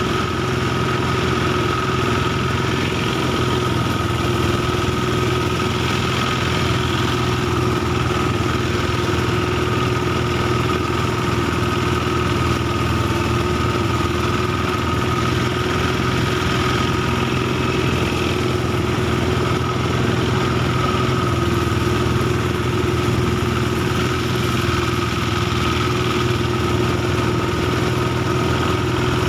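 Engine-driven rice thresher running steadily, a constant engine drone with a steady hum that does not change.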